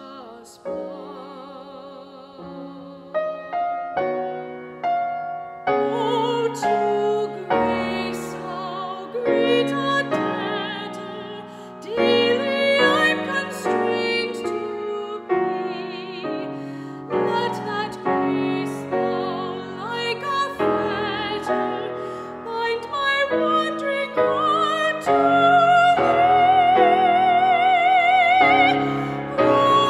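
A woman singing a solo in a classical, operatic style with a wide vibrato, accompanied by piano. Her voice grows stronger and higher near the end.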